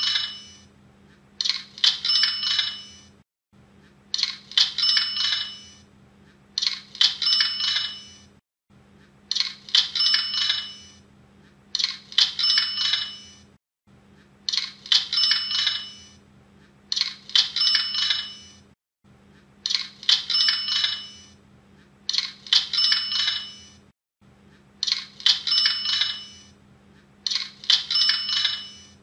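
Cash-register 'cha-ching' sound effect, the sale-made notification sound used by Hotmart, repeated over and over about every two and a half seconds. Each repeat is a quick metallic clatter with a bright bell ring that fades away.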